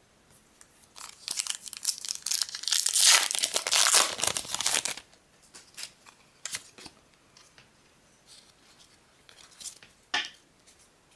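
A foil Pokémon XY booster pack wrapper being torn open and crinkled, loud for a few seconds, then only faint rustles and light taps of the cards being handled, with one sharper tap near the end.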